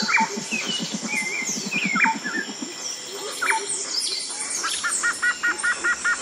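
Forest birdsong: several birds chirping and calling at once, with three sharp downward whistles and a low, rapid pulsing call during the first few seconds. From about five seconds in, one bird repeats a short call about five times a second.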